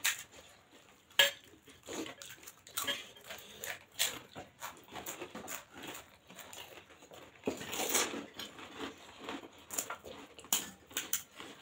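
Stainless steel bowls, plates and spoons clinking, with the crisp cracks of hollow fried puris being broken open by hand. The sharpest clack comes about a second in, and there is a denser stretch of clatter a little past the middle.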